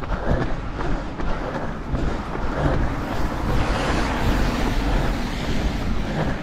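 Road traffic on a wet road heard over wind rumble on a running camera's microphone; a van passes from behind about four seconds in, its tyres hissing on the wet tarmac.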